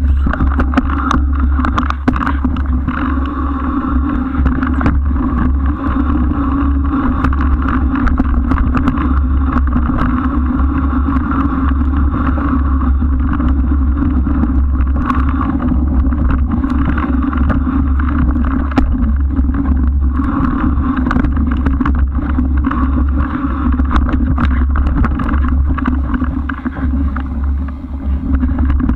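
Steady rushing wind and riding noise on a bike-mounted camera during a ride, with frequent small clicks and rattles throughout.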